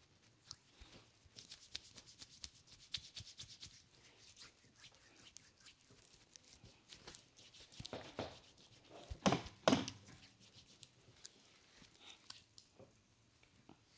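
Hands rubbing, squeezing and stroking a cream-lathered foot and sole, making soft wet squishing and slapping sounds with many small clicks of skin on skin. A few louder strokes come about eight to ten seconds in.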